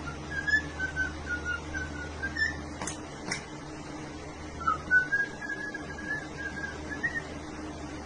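Cockatiel whistling: a clear, slightly wavering whistle held near one pitch, broken about three seconds in by two short sharp chirps half a second apart, then taken up again.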